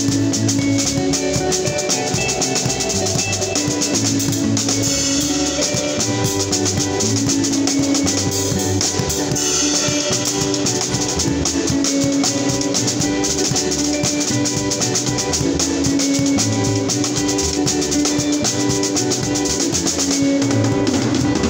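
Drum kit played continuously, a busy groove of bass drum, snare and cymbal strokes, over backing music with held bass and keyboard-like notes that change every second or two.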